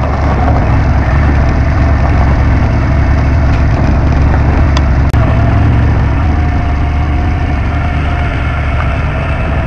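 Motorcycle engine running with a steady low note and no revving. The sound cuts out for an instant about five seconds in.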